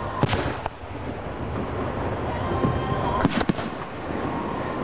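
Fireworks shells bursting overhead, with a sharp bang about a quarter second in and another cluster of bangs about three seconds in, over a steady background of noise.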